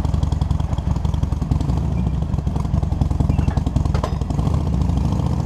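Harley-Davidson Sportster's air-cooled V-twin idling steadily, heard close from a camera clamped to the rear license plate, with a brief click about four seconds in.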